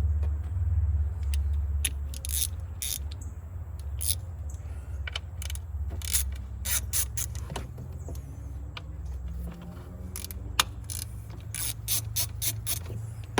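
Hand ratchet with a 10 mm socket clicking in irregular runs as bolts are loosened, over a steady low hum.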